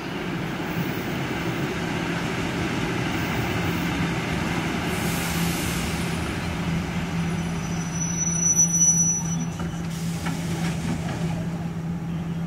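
ER2R electric multiple unit pulling into the platform and coming to a stop: steady running noise with a low hum, a brief high-pitched squeal about eight seconds in as it halts, and hisses of released air from the air brakes.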